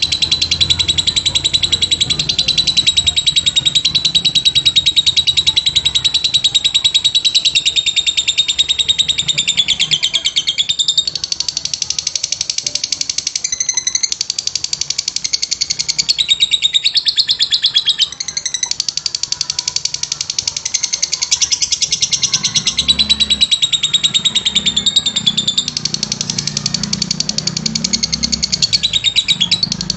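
A bird, billed as a puter dove that sounds like a lovebird, giving a long, unbroken, high-pitched rapid chattering trill in the manner of a lovebird, with a few brief breaks.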